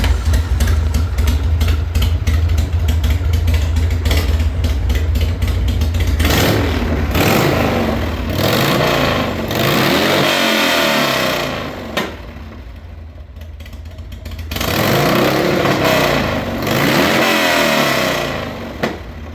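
Motorcycle engine with a freshly rebuilt accelerator pump in its Mikuni HSR42 pumper carburettor, running just after an electric start. It runs steadily at first, then is revved up and down, drops back to idle for a couple of seconds, revs again and settles to idle near the end.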